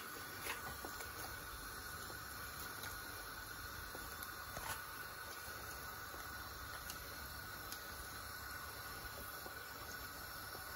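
Steady low hiss of a stove burner on full flame under a steel pan, with a few faint clicks of a bowl or spoon against the pan, once about half a second in and once near the middle.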